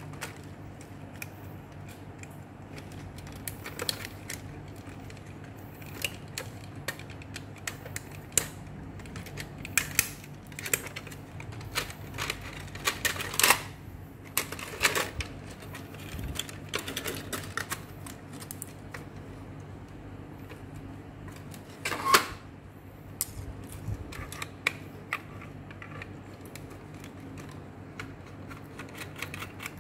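Irregular clicks, taps and knocks of plastic and metal parts being handled as an Epson EB-W01 projector is taken apart by hand at its metal-shielded power-supply unit. Two louder knocks come about 13 and 22 seconds in.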